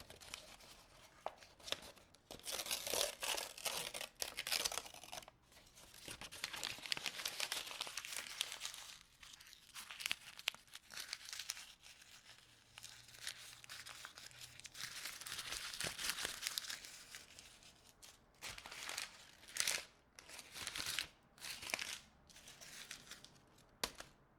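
Something being crumpled and crinkled close up, in irregular bouts of crackling with short pauses between them.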